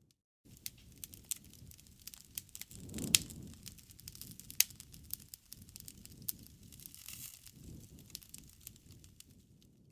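Wood fire crackling, with scattered sharp snaps over a low rumble of flames. It briefly swells louder with a loud pop about three seconds in, and gives another sharp pop a second and a half later.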